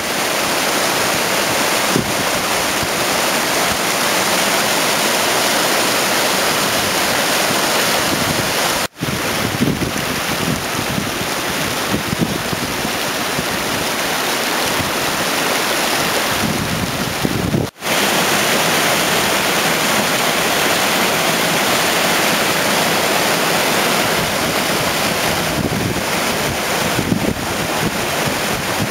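Mountain river rushing and splashing down rocky cascades in a steady, loud hiss, with wind buffeting the microphone at times. The sound drops out for an instant twice.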